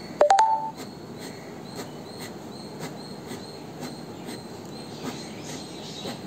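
Pen tip scratching short quick strokes on paper, about two strokes a second. A brief loud chirp, rising in two or three quick steps, cuts in over it about a quarter second in.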